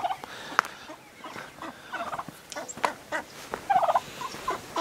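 A few short warbling bird calls, with scattered sharp clicks and crunches of footsteps on dry, rocky dirt.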